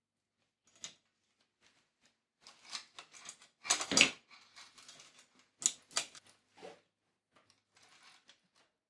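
Bicycle chain clinking and rattling in irregular bursts of metallic clicks as it is handled and fed onto the drivetrain during installation. The loudest clatter comes about four seconds in, with another sharp burst around six seconds.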